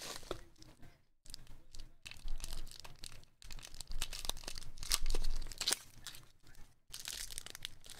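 Clear plastic bag and padded paper mailer being handled as a graded card slab is pulled out and unwrapped: irregular crinkling and rustling crackles, with a few brief pauses.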